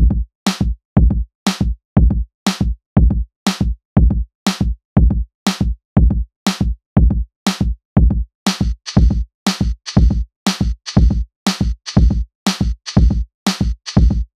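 Background electronic music with a drum-machine beat, about two beats a second. A hissing layer comes in a little past halfway.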